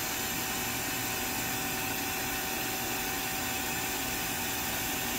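Ganesh Cyclone 32CS CNC turning center running with a steady mechanical hum and a faint steady tone while its sub-spindle is run along the Z-axis.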